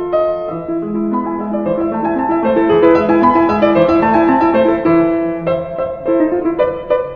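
Background music: a solo piano piece with a flowing melody over lower held notes.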